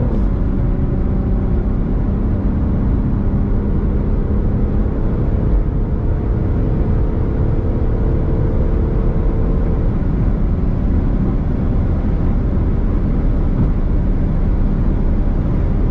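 Car engine pulling hard at full throttle at high speed, with a steady heavy rush of wind and road noise and the engine note slowly rising in pitch. There is an upshift partway through.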